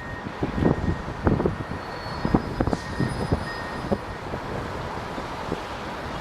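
Jet aircraft engine noise at an airport: a steady rushing rumble, with irregular low buffeting over the first few seconds.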